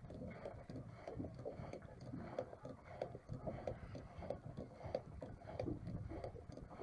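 Small boat on the water: irregular light knocks and sloshing as water laps against the hull, over a low rumble.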